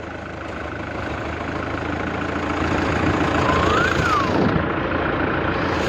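Tractor diesel engine running steadily with a strong low hum, growing gradually louder. A short tone that rises and then falls is heard about four seconds in.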